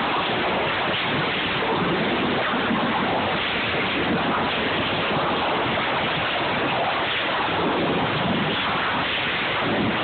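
Steady, dense noise of sawmill trimline machinery running, with no separate saw cuts or board knocks standing out.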